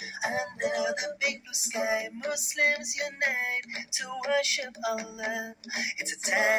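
Background nasheed: a singing voice carrying a melody in short phrases.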